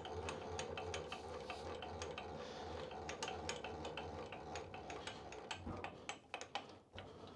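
Milling machine's vertical feed raising the head and spindle-mounted dial indicator: gears and leadscrew run with a steady hum and rapid ticking. The hum stops a little before six seconds in, followed by a few separate clicks.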